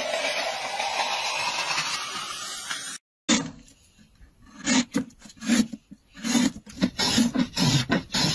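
Rhythmic scraping strokes, about two a second, of a curved two-handled blade hollowing out a wooden bowl. They begin after a sudden cut about three seconds in. Before the cut, a steady machine hiss with a slowly rising whine comes from a rig cutting a plastic bottle into a strip.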